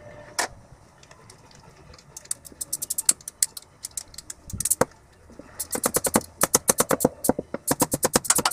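Ratchet wrench clicking in quick runs of about eight clicks a second, in several bursts with a few single knocks between, as bolts on the camshaft bearing caps of the cylinder head are worked loose.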